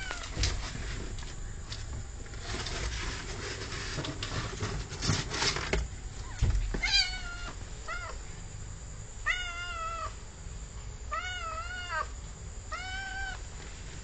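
Domestic cat meowing about five times in the second half, each short meow rising and then falling in pitch. Before the meows come rustling and a few thumps.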